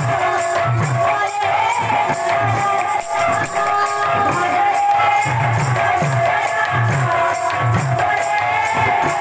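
Sambalpuri kirtan music: two-headed barrel drums beaten in a steady repeating rhythm under a constant jingle of small cymbals, with held melody tones over the top.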